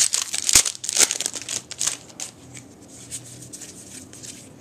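Foil wrapper of a baseball card pack being torn open and crinkled, crackling loudly for about the first two seconds, then fainter rustling as the cards are slid out.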